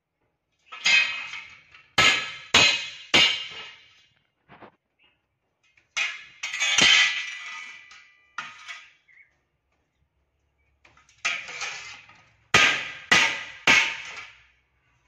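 Hammer striking a steel bar resting on a steel block, sharp ringing metallic blows in bursts, including two runs of three quick strikes about half a second apart.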